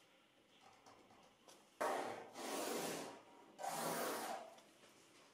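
Pattern paper rustling and a ruler rubbing across it, in two passes of about a second each. The first starts abruptly about two seconds in.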